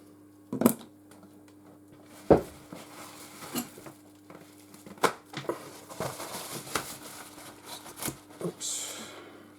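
Small tool clicks, knocks and scrapes against the inside of a phone as its glued battery is pried loose, with a sharp knock about two seconds in. A steady low hum runs underneath.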